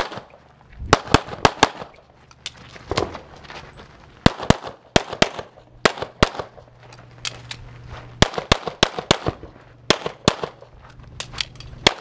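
Pistol shots fired in quick strings of two to four, with short pauses between strings, as a shooter works through a practical shooting stage.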